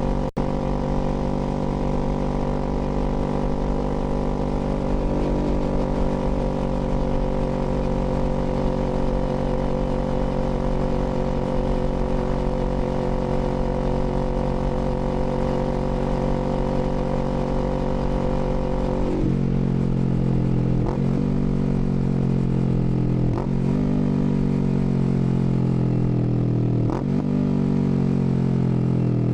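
Kawasaki Z400's parallel-twin engine under way, running at a steady note. About two-thirds in the note drops and then shifts, with three quick breaks a few seconds apart like gear changes.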